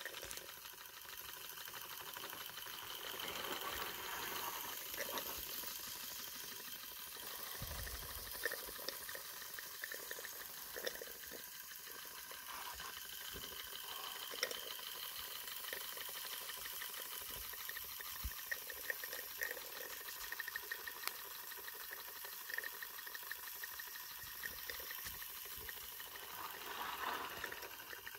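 Live-steam model Mercer traction engine running steadily under steam: a soft continuous hiss of steam with light, irregular clicks from the small brass cylinder and valve gear, the engine holding its pressure.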